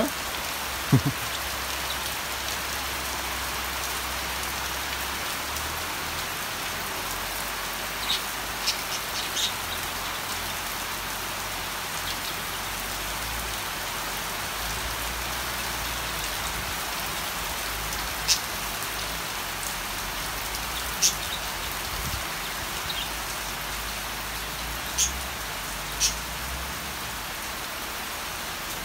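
Steady rain falling, an even hiss of rain on the ground, with a few brief high-pitched ticks scattered through it.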